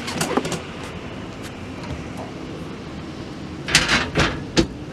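Snap-on steel tool box being shifted into position: a few light knocks near the start, then a cluster of loud bangs and scrapes lasting under a second near the end.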